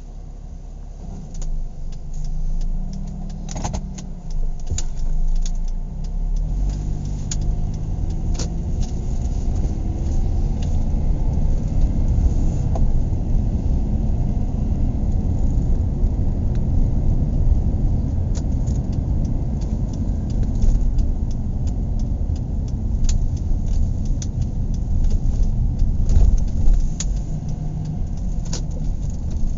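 Car driving, heard from inside the cabin: the engine hum rises in pitch as the car speeds up over the first several seconds, then settles into a steady low road rumble. Small clicks and rattles come through now and then.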